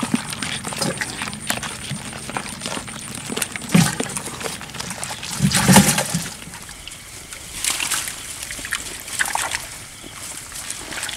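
Water sloshing and splashing from a fish trap being handled in floodwater, with scattered knocks. Two louder splashes come about four and six seconds in.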